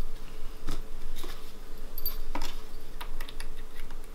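Scattered small clicks and taps of plastic and metal parts of a ski and snowboard rack adapter being handled and fitted together by hand, a few separate knocks spaced irregularly.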